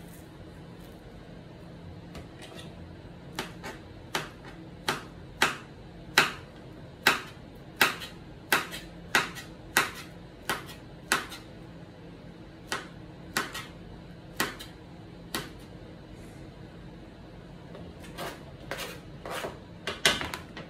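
A kitchen knife chopping through banana onto a plastic cutting board: sharp knocks about one every two-thirds of a second, each cut tapping the board, with a few quicker, softer knocks near the end.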